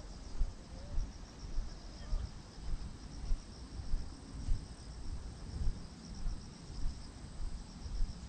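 Crickets chirping in a steady, fast-pulsing high trill, over the walker's own footsteps thudding on the path a bit under twice a second.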